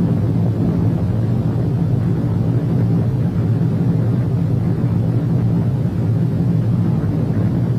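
Steady deep rumbling roar of a nuclear explosion, with no music over it.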